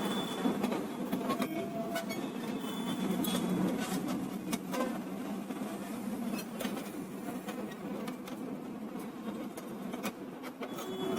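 Steady low buzzing hum of a small electric motor running, with scattered light clicks and taps of plastic printer parts being handled.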